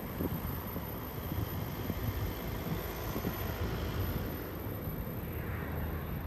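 Box wagons of a long intermodal freight train rolling past, a steady low rumble of steel wheels on rail with a few faint clanks.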